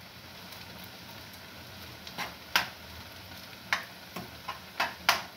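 A cooking utensil stirring a frying pan of tomato stew on a gas stove, clacking sharply against the pan about seven times in the second half over a soft, steady sizzle.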